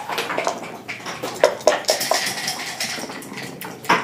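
Backgammon dice rattled in a dice cup and thrown onto the board, a run of sharp clicks and clatter with a louder knock near the end.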